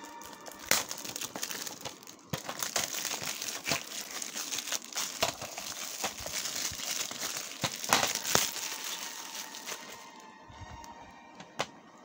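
Plastic shrink-wrap on a DVD case crinkling and crackling as it is handled and peeled off, with dense sharp crackles that fade about ten seconds in.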